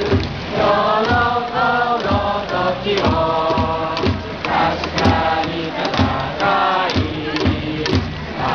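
Stadium crowd singing and chanting a cheer song together with the cheering section's trumpets, over a steady drum beat.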